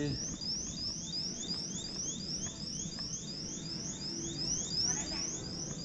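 A high electronic chirp, a short rising sweep repeating about four times a second, over steady low background noise.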